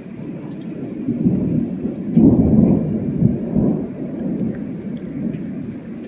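Thunder rumbling: a deep roll that builds about a second in, peaks around two to three seconds in, then slowly dies away.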